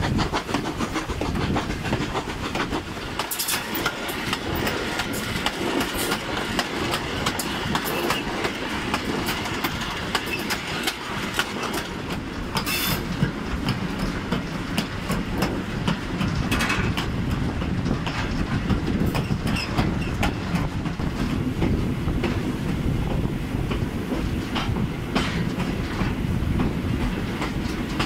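Steam-hauled train of wooden passenger coaches running, with a steady rumble and the clickety-clack of wheels over the rail joints, heard from on board.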